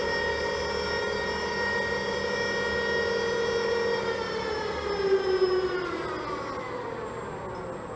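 Electric drive of a ship's bow visor whining as it moves the visor. The whine holds steady for about four seconds, then falls steadily in pitch as the drive slows.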